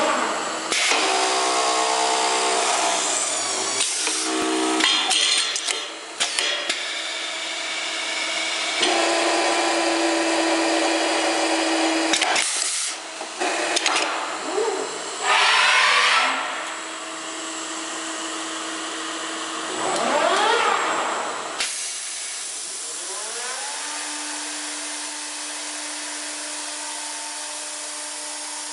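Masterwood Tekonomat 5000 CNC woodworking machining center running through a cycle: motor whine and mechanical noise that keep changing, with whines that rise and fall in pitch several times. The loudest, hissy stretches come in the middle, and near the end it settles to a steadier, quieter hum.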